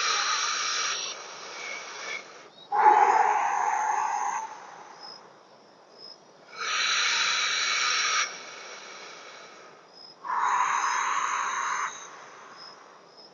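A man breathing slowly and deeply close to a clip-on lapel microphone. There are two full breaths, each a long inhale and a long exhale of about one and a half to two seconds, separated by short pauses.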